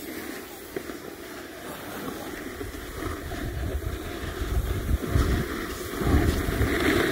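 Wind buffeting the phone microphone while moving down a snowy slope, the low gusty rumble growing stronger from about three seconds in, over a steady hiss of a board sliding on snow.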